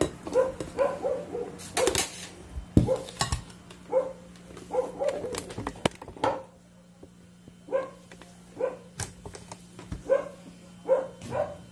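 A dog barking over and over in short barks, mixed with sharp clicks and knocks of a plastic food processor lid and bowl being handled.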